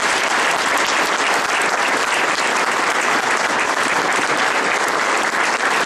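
A room full of people applauding, a dense steady patter of many hands clapping.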